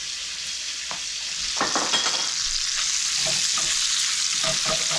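Sliced kielbasa sizzling in bacon grease in a frying pan over medium heat, the sizzle growing louder after about a second and a half. A few light knocks and clatters sound over the sizzle.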